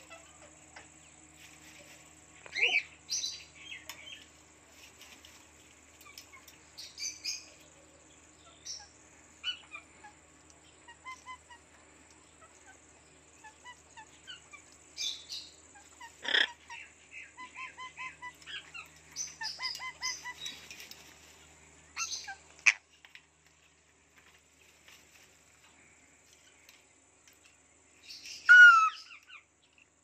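African grey parrot vocalizing in scattered bursts of short whistles, chirps and clicks, including a run of quick repeated beeping notes a little past halfway. Near the end a louder, brief gliding squawk-like call stands out.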